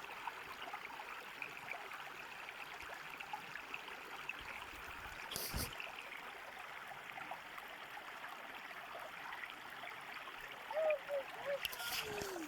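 Small stream of shallow water babbling steadily over stones, with a single short knock about five and a half seconds in.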